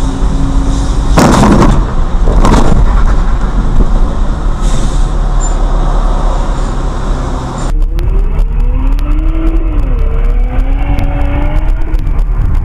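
Driving car recorded from inside on a wet road: steady engine and tyre noise, with two loud short rushes of noise about one and two and a half seconds in. About three-quarters of the way through, the sound cuts abruptly to a duller recording of a car, with a thin tone sliding up and down over it.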